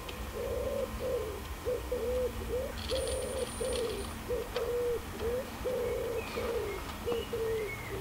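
A pigeon cooing: a long run of short, low coo notes, about two a second, with small birds chirping faintly above it.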